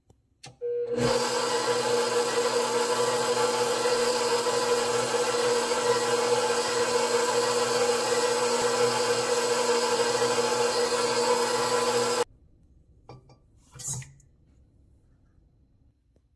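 KitchenAid stand mixer motor running steadily at one pitch, its flat beater mixing eggs in the stainless steel bowl. It starts about a second in and cuts off sharply after about eleven seconds, followed by a couple of light knocks.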